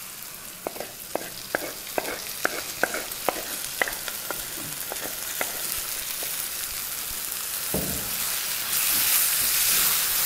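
Onions, tomatoes and ginger-garlic paste frying in oil in an earthen clay pot as mashed gongura (sorrel leaf) paste goes in. A run of sharp crackles and pops comes through the first half, and the sizzle swells to a louder, steady hiss near the end.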